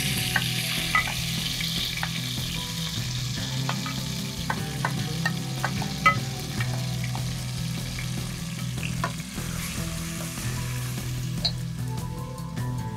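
Marinated chicken sizzling as it drops into hot oil in a wok, the hiss loudest at first and then settling, with clicks of a wooden spoon scraping and tapping against the glass dish and the pan.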